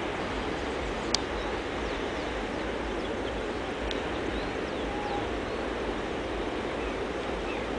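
Steady noise of distant surf breaking on the beach, with faint high bird chirps and one sharp click about a second in.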